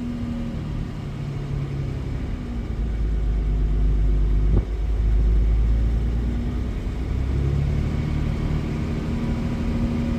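Jaguar XJ-S 3.6's straight-six engine pulling at low revs under 2,000 rpm, heard from inside the car. A deep rumble builds a few seconds in, breaks off briefly, then eases. This is the rev range where the owner says the engine struggles and misfires.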